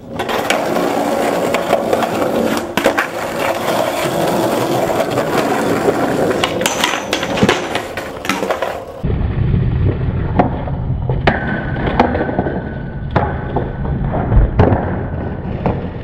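Skateboard wheels rolling on concrete pavement, with frequent sharp clicks and clacks. About nine seconds in, the sound turns abruptly duller and lower, with several sharp knocks of the board.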